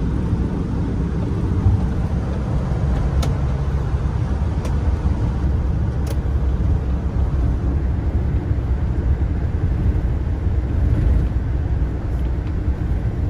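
Steady low rumble of engine and tyre noise inside a moving passenger van's cabin, with a few faint clicks.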